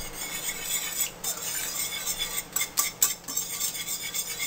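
Metal balloon whisk beating a thick mayonnaise dressing in a mixing bowl: a wet stirring sound with repeated light scrapes and taps of the wires against the bowl, at an uneven pace.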